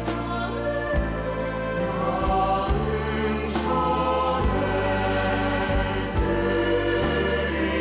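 A Korean gospel worship song: voices singing in Korean over keyboard accompaniment with a sustained low bass line.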